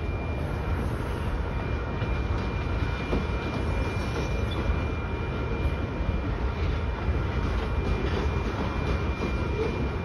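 Freight train of loaded covered grain hopper cars rolling steadily past at a grade crossing: a continuous heavy rumble of wheels on rail, with a thin steady high-pitched tone running through it.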